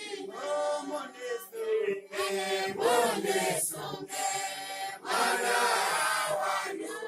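A church congregation singing a hymn together, many voices at once, in phrases with short breaks between them.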